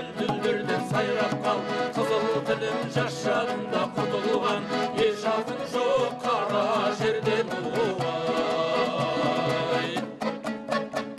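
Kazakh folk music played on instruments, with quick, evenly repeated note attacks.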